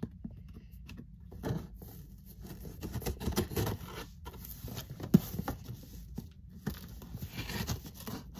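Cardboard Funko Pop box being handled and opened by hand: scattered rustles, scrapes and small taps, with one sharper tap about five seconds in.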